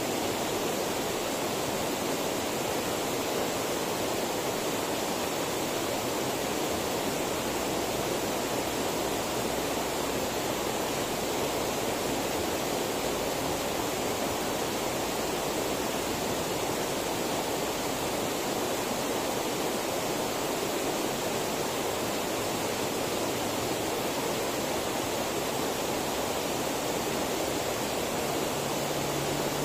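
Steady rushing of flowing water, an even unbroken noise at a constant level. A faint low hum joins near the end.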